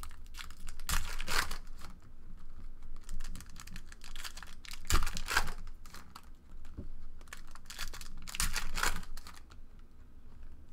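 Foil trading-card pack wrappers crinkling and rustling as packs are handled and stacked, in several short bursts.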